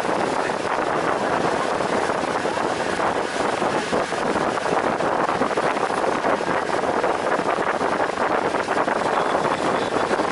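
Steady wind rushing over the microphone aboard a moving tour boat, blended with the boat's running noise and water along the hull.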